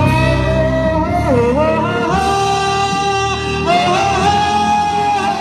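Music from a song's introduction: a melody line of long, held notes that slide from one pitch to the next, over a full accompaniment.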